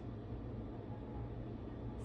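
Quiet room tone: a steady low hum with faint hiss and no distinct events.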